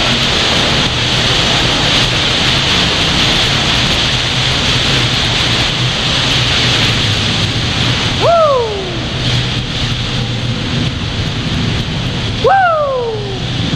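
ATV running along a trail, its engine a low steady drone under heavy wind and trail noise on a goggle-mounted camera. Twice a short high call sweeps sharply up and falls away.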